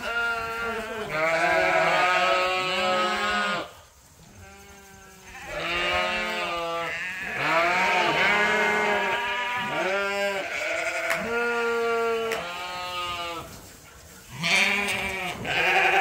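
Several sheep bleating at once, their calls overlapping, in three bouts with short lulls between.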